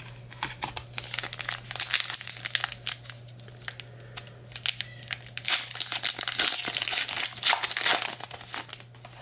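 Foil wrapper of a 2022 Topps Gypsy Queen baseball card pack being crinkled and torn open: a run of dense crackles, busiest about two seconds in and again from about five and a half to eight and a half seconds in.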